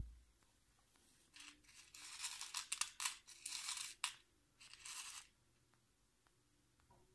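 Fingers stirring and picking through dried whole cloves in a plastic bottle cap. This makes a dry crackling rattle of many small clicks, in bursts between about one and five seconds in. A short low thump comes at the very start.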